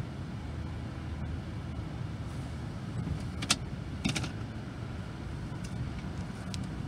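A car's engine idling, heard as a steady low rumble inside the cabin. About halfway through there are two sharp clicks, about half a second apart, as the driver moves the gear selector.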